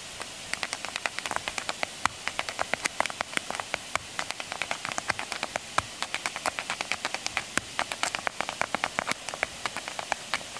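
Irish step-dance shoes striking a tarmac path in rapid, irregular taps, several a second, over the steady rush of the Powerscourt waterfall.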